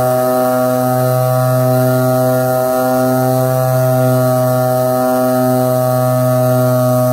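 Paramotor trike engine and propeller running at high power during a ground run-up, a loud steady drone that holds one pitch.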